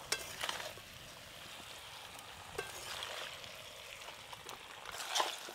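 Spiced young jackfruit and fried potatoes sizzling in a steel karai as they are fried down in the masala, with a metal ladle scraping and stirring them a few times.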